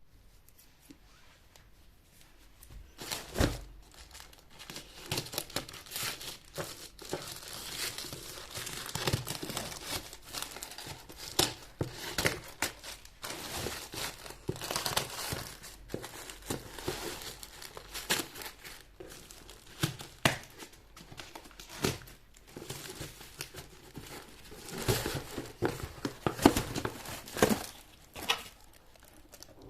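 Packaging crinkling and tearing as a parcel of shoes is unboxed by hand, in irregular rustling handfuls with sharp crackles throughout, and a single louder knock about three and a half seconds in.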